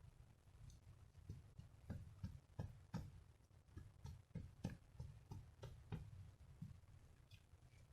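Faint, irregular light ticks and taps, about a dozen of them, over a low rumble.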